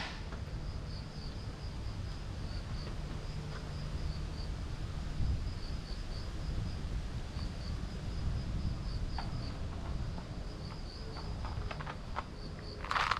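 Insects chirping in a steady, pulsing high-pitched trill, over a low rumble, with a short burst of louder noise at the very end.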